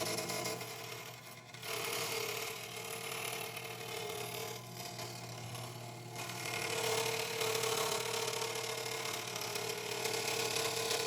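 WEN 3922 16-inch scroll saw running, its reciprocating blade cutting through a workpiece with a steady mechanical hum. The cutting noise eases briefly about a second in and again around the middle, then picks back up.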